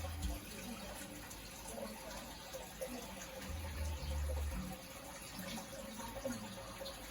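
Aquarium filter running, its return water trickling and splashing into the tank, with a faint steady hum and a couple of brief low rumbles.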